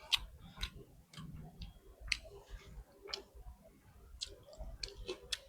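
Close-up chewing of pork, rice and dal, with sharp wet mouth clicks and smacks at irregular intervals, several a second at times.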